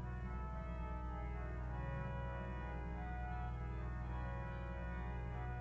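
Organ music: slow, sustained chords over a deep held bass note, the upper notes changing a few times.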